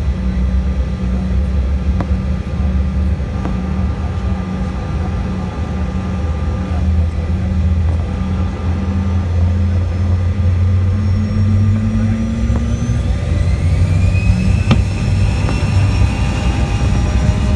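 Bombardier CRJ200's twin GE CF34 turbofan engines running with a steady low drone, then spooling up with several rising whines from about twelve seconds in as power comes up for takeoff.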